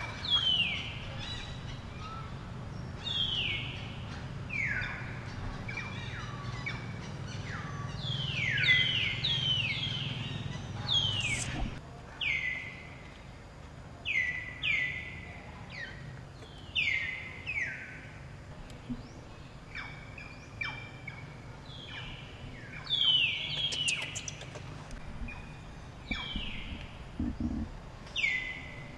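Birds calling: many short calls that each slide down in pitch, repeated and often overlapping. A low hum runs underneath and stops about twelve seconds in.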